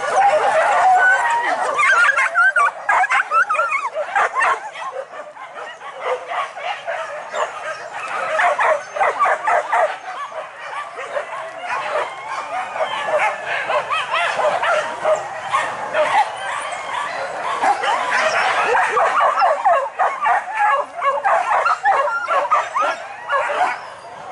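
A pack of hunting dogs yelping and barking on a wild boar chase, many short high cries overlapping with no break. The cries thin out a few seconds in and build again later.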